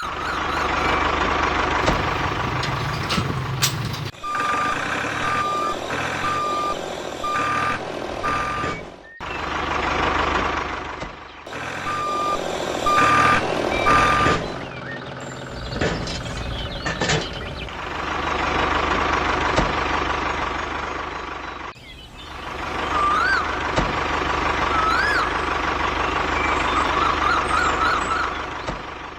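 Vehicle engine running steadily, with a reversing alarm beeping repeatedly in two runs of beeps, and abrupt cuts where the sound changes.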